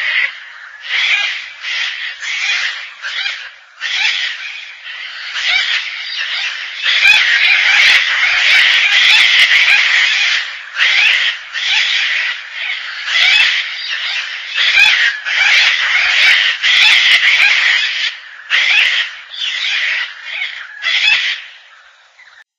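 Gang-gang cockatoos giving repeated harsh, creaky calls, spaced at first and then crowding together almost without pause through the middle, thinning again near the end.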